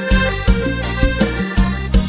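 Instrumental music with a steady beat of about two strokes a second, a reedy, accordion- or keyboard-like melody over it.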